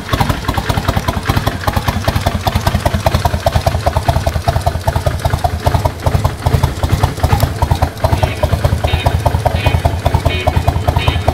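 Kawasaki Vulcan 1500's V-twin engine, fitted with a Kuryakyn Hypercharger air intake, idling with an even, steady throb. Some higher tones come in on and off near the end.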